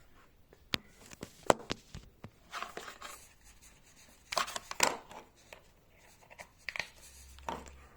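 Sharp clicks and rustling as a laptop power-supply plug and cable are pulled out and handled, a few clicks close together with the loudest about one and a half seconds in.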